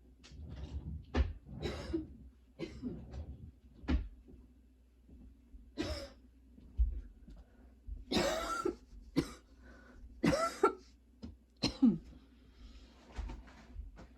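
A girl's coughing fit: a string of about a dozen harsh coughs in bursts, a few drawn out with a falling pitch. It is a persistent cough that her current medication has not cleared.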